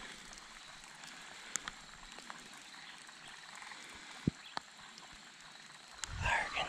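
Quiet outdoor ambience with a few faint ticks and one soft knock about four seconds in. Low rustling and a whispered voice start near the end.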